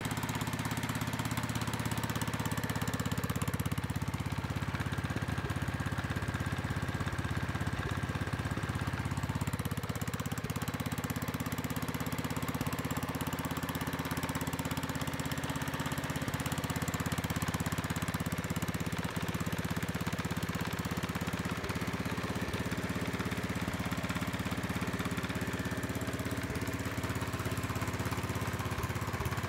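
Kohler engine on a Howard Gem rotovator running steadily.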